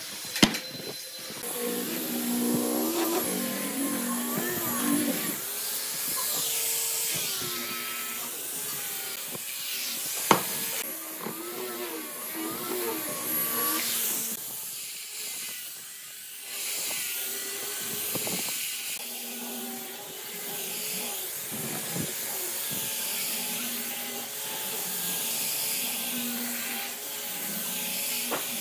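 Handheld angle grinder with a sanding disc running against a curved wooden piece. Its motor whine wavers in pitch as it bears on the wood, over a gritty abrasive hiss. Two sharp knocks come through, one near the start and one about ten seconds in.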